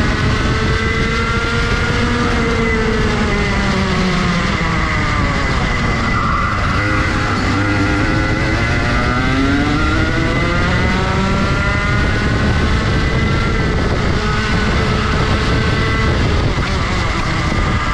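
Rotax Max Junior 125cc two-stroke kart engine, heard onboard at racing speed. The revs drop away from about two seconds in to a low point around six or seven seconds as the kart slows for a corner, then climb back up under acceleration. The revs dip and rise again near the end.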